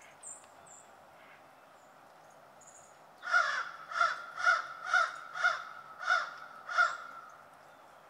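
American crow cawing seven times in a steady series, about two caws a second, starting about three seconds in.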